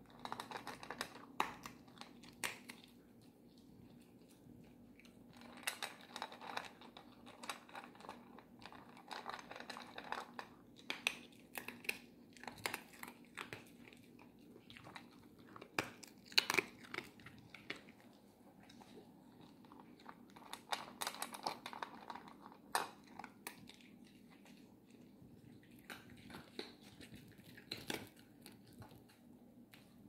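Miniature poodle crunching dry prescription kibble from a metal bowl, in irregular bursts of sharp crunches with short pauses between mouthfuls.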